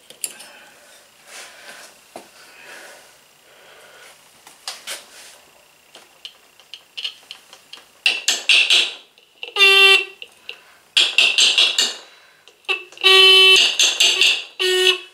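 Scooter's electric disc horn sounding in about five short blasts through the second half, some harsh and buzzy and some a clear honk, as its adjustment screw is turned to bring back a horn that had only been clicking. Before that there are only faint small clicks.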